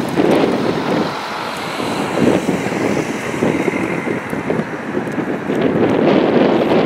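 A BMW X1 car drives past close by, with wind buffeting the microphone.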